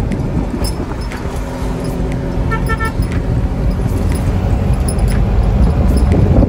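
Ride inside the open cab of a three-wheeler auto-rickshaw in traffic: the small engine's steady drone with road and wind noise. A short run of quick high beeps sounds about two and a half seconds in.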